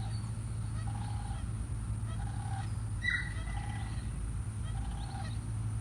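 A bird calling over and over, a short call about every second and a quarter, with one higher, sharper call about three seconds in, over a steady low hum.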